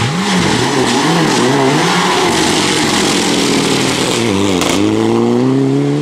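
Rally car engine on a gravel stage, its revs rising and falling several times as the throttle is worked, over a hiss of tyres and gravel. About four and a half seconds in the revs dip briefly, then the pitch climbs steadily as the car accelerates.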